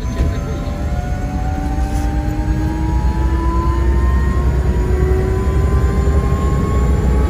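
Helicopter turbine engine and rotor heard from inside the cabin: a deep steady drone with a whine that rises slowly in pitch as the engine speeds up.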